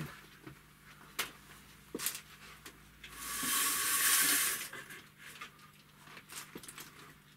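Venetian blind being raised: a few light clicks and taps as it is handled, then about a second and a half of rushing, rattling noise from the slats and cord as it goes up, and more small clicks as it settles.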